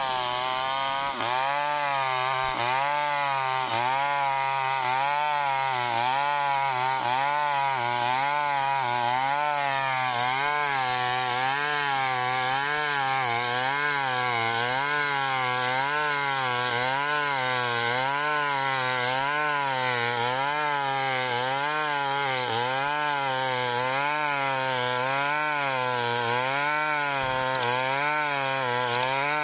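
Small chainsaw running under load as it rips lengthwise through a log, cutting planks along the grain. The engine pitch rises and falls in a steady rhythm about once a second.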